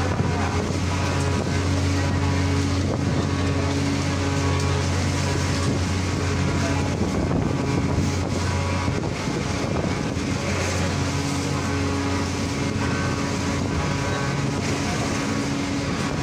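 Low, steady drone of a ferry's diesel engines, with a few held tones above it, over a wash of wind and churning water.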